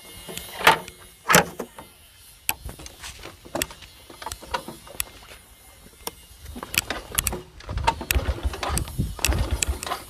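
Small motorcycle being kick-started without firing: metallic clicks and knocks first, then from about two-thirds of the way in a run of low, uneven thuds as the engine is cranked over but doesn't catch.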